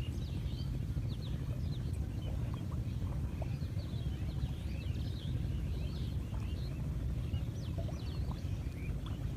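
Many small birds chirping in quick, short calls over a steady low rumble.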